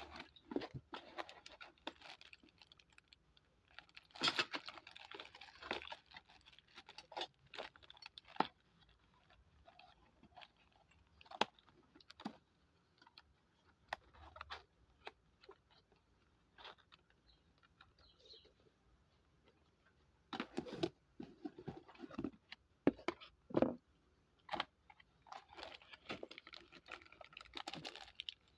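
Hands handling the parts of a TV wall bracket kit: scattered clicks and light knocks of thin metal plate and hardware, with two longer spells of rustling, about four seconds in and near the end.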